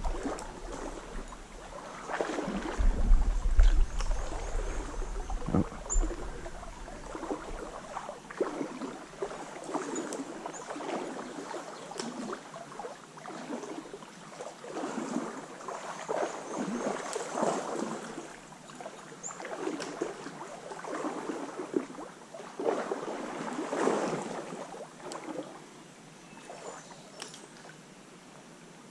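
Water sloshing and splashing in uneven surges every second or two, as legs wade through a shallow stream, over the flow of the current. A low rumble from wind or handling on the microphone sits under the first few seconds.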